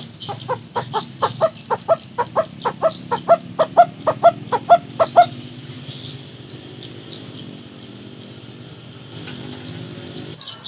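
Barbet (burung takur) calling its 'teguk-teguk' song: a rapid run of short hollow notes, about four a second, growing louder for about five seconds, then stopping.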